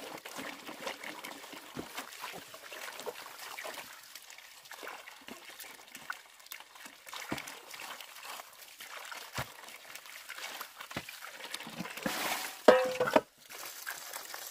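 Water trickling from a pipe into a metal basin, with splashing and sloshing as green onions are rubbed and rinsed by hand. Near the end, a short, loud pitched cry that cuts off suddenly.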